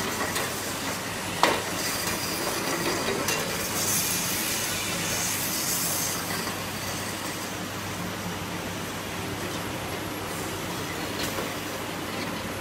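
Automatic powder-can packaging line running: a rotary can turntable and conveyor moving empty cans, giving a steady mechanical hum and clatter. A sharp knock stands out about a second and a half in, and a high hiss comes and goes between about four and six seconds in.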